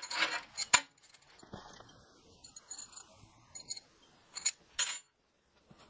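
Short lengths of twisted steel rebar clinking against one another and the steel bench top as gloved hands gather them up: a few sharp metallic clinks, one loud near the start and two more near the end.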